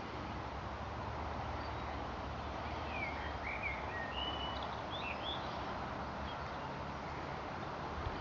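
Steady outdoor background noise with a few short bird chirps about three to five seconds in.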